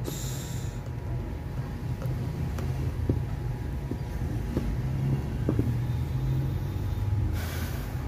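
A screwdriver driving the screws into a plastic hair dryer's housing, heard as a few faint ticks, over a steady low rumble. Two short hisses come at the very start and near the end.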